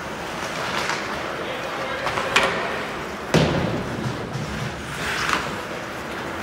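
Ice hockey play in an arena: skates scraping and carving the ice, clacks of sticks and puck, and a heavy thud against the boards about three seconds in, with players' voices calling out.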